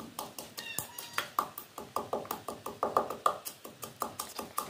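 Wooden pestle pounding whole spices and garlic in a wooden mortar: a fast, even run of dull knocks, about four to five strokes a second.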